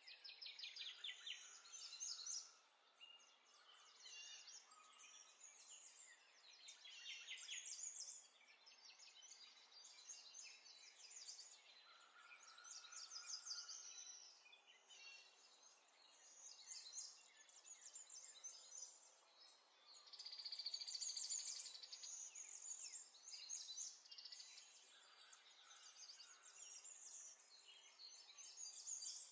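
Faint scraping and squelching of a metal spoon stirring a thick spice-and-tomato paste marinade against a ceramic bowl, in bursts of a second or two with short pauses between them.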